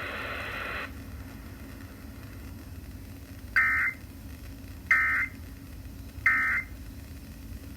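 Emergency Alert System end-of-message data bursts from a radio: three short, identical electronic warbling buzzes about a second and a half apart, marking the end of the EAS test message. A brief stretch of radio hiss stops just under a second in.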